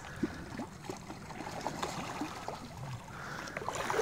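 River water running over gravel shallows, with small splashes and sloshing that grow toward the end as wading boots move through the water.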